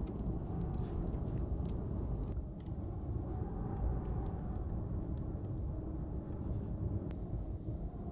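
Kindling fire just catching in a wood stove's open firebox, with a few sharp crackles over a steady low rumble.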